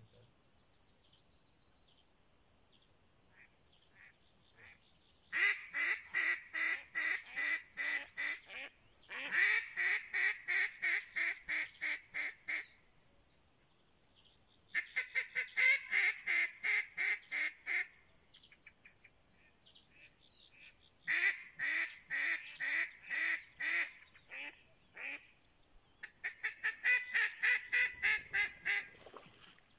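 Mallard duck calls blown in five runs of loud, rapid hen-mallard quacks, about three or four quacks a second and a dozen or so per run, to call in a drake mallard.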